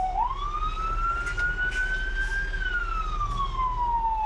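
Fire engine siren wailing, heard from inside the cab: one slow sweep that rises in pitch for about two and a half seconds and then slides back down. A low engine rumble runs underneath.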